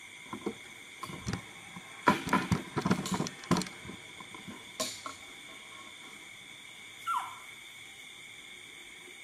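Rustling with a quick run of soft clicks and knocks as the animals shift about on the couch blankets, loudest a couple of seconds in, and a short falling squeak about seven seconds in, over a steady high insect chirring.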